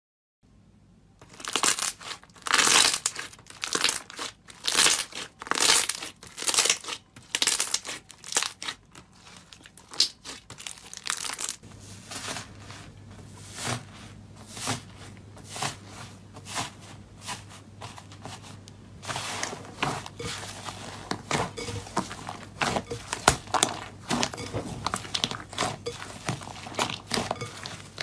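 Hands squishing and kneading slime in a glass bowl: quick, irregular crackling and popping as air pockets in the slime burst and squelch. It starts about a second in.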